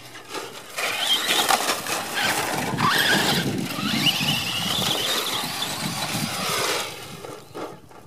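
Traxxas brushless RC truck driving over loose dirt: the electric motor's whine rises and falls with the throttle over the scrabble of tyres and stones, starting about a second in and dropping away near the end.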